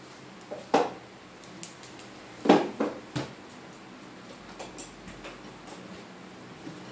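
A few short, sharp knocks and clatters of hard objects, about four in the first three seconds, the loudest about two and a half seconds in, over quiet room background.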